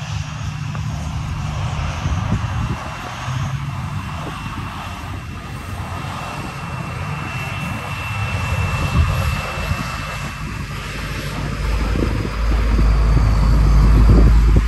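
Jet airliner's engines running before takeoff: a steady, loud roar with a thin high whine through the middle. A deep low rumble swells near the end.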